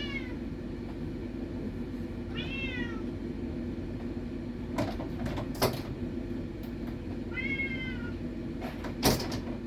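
Tom cat meowing three times, each call short and falling in pitch, over a steady low hum. A few sharp knocks come in between the calls.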